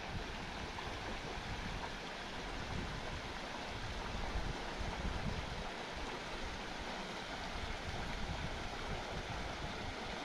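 Steady, even rushing noise of the open-air river setting, with no distinct events.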